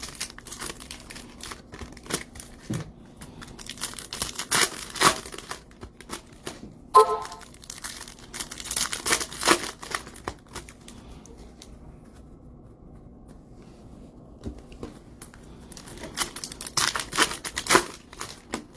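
Plastic wrapping and packaging crinkling and rustling as it is handled, in several spells with a quieter stretch in the middle. A brief tone sounds about seven seconds in.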